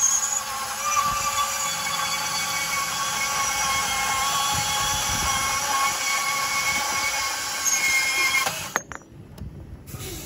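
Makita XBP05 18-volt brushless cordless band saw cutting through a pipe: a steady motor run with a whining ring from the blade. It stops abruptly about nine seconds in as the cut goes through.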